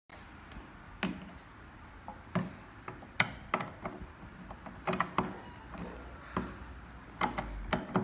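Irregular sharp plastic clicks and taps as the resistance adjuster knob on a fluid rowing machine's water tank is gripped and worked on with a small metal tool.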